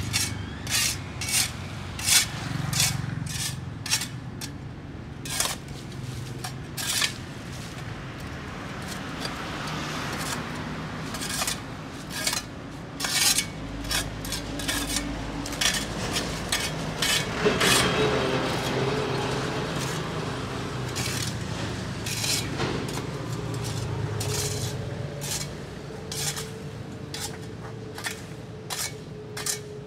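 Hand tools scraping dirt and debris off a paved sidewalk: short, irregular scraping strokes, roughly one or two a second.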